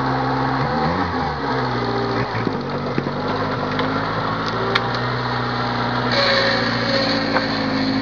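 Off-road 4x4's engine running steadily, its pitch dipping briefly twice in the first few seconds.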